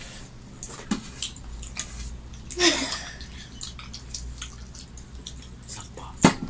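Hand-eating at close range: fingers wiping and scraping curry and rice off stainless steel plates, with scattered small wet clicks and squelches and some chewing. A short burst of voice comes about two and a half seconds in, and a sharp click near the end.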